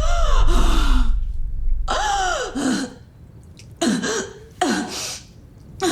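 A woman's short, breathy gasping cries, about four of them, each sliding down in pitch and separated by brief pauses.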